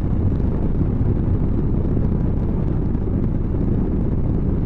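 Motorcycle under way at a steady speed: the engine running beneath a constant rush of wind noise on the microphone.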